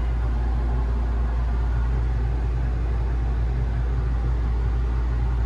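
Steady low rumble and hum inside an enclosed Ferris wheel gondola riding near the top of the wheel, even and unbroken.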